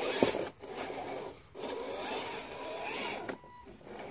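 Axial SCX10 RC scale crawler's small electric motor and gearbox whining in short bursts, the pitch rising and falling with the throttle, with brief pauses, as the truck crawls up a steep clay bank.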